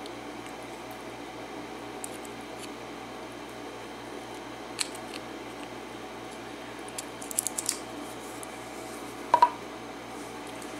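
Light metal clicks and rattles of a Kwikset six-pin lock cylinder being taken apart by hand, as a plug follower is pushed through the housing: a click about five seconds in, then a quick cluster of small clicks. The loudest sound is a sharp, briefly ringing metal clink near the end, as the plug comes out of the housing; a steady low hum lies under it all.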